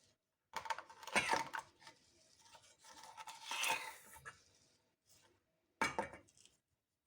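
Kitchen handling sounds from preparing onions and honey: scraping and clinking of utensils and containers in three bursts, the longest about a second in.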